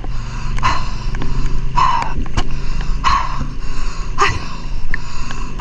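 Water sloshing and splashing around a camera held at the surface of a fast-flowing river, with a steady rush and a surge about once a second.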